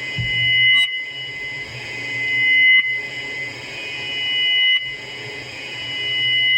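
Electric bass played through a Fender Champion 20 amp's built-in effects, giving a sustained high-pitched ringing tone over a low hum. The sound swells up and then cuts back sharply about every two seconds.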